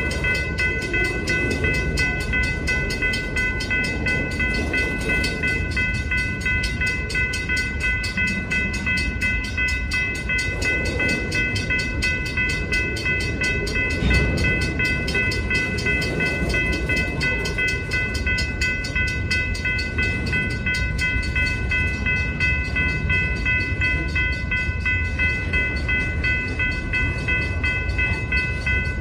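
Freight cars (centerbeam flatcars and boxcars) rolling slowly past with a steady low rumble of wheels on rail, and a single sharper knock about halfway through. Over it, a grade-crossing warning bell rings continuously as a steady high-pitched ring.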